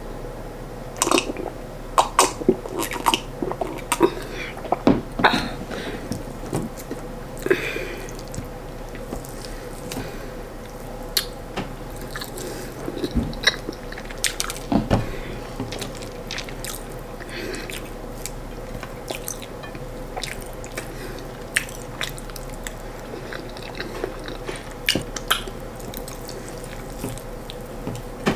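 Close-up mouth sounds of someone eating corn fufu and stewed chicken by hand: irregular wet chewing, lip smacks and bites, busiest in the first several seconds, over a steady faint hum.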